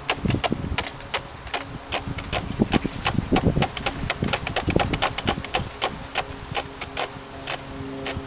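A rapid, irregular clatter of sharp clicks and knocks, several a second, with steady low tones coming in near the end.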